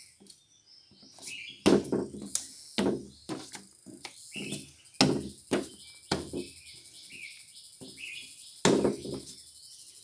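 A kung fu practitioner's stamps and strikes on a wooden deck: about seven sharp, hollow knocks at irregular intervals, the loudest a little under two seconds in, around five seconds in and near nine seconds. Birds chirp and insects buzz steadily behind them.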